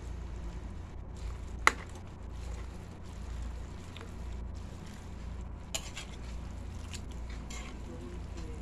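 Metal spatula working in a wok of rice noodles and vegetables, with one sharp metal clink about one and a half seconds in and a lighter one near six seconds, over a steady low hum.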